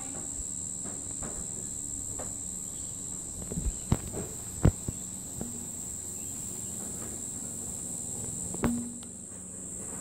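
Steady, high-pitched insect chorus droning in the background, with a few sharp taps and knocks about four seconds in and once more near the end.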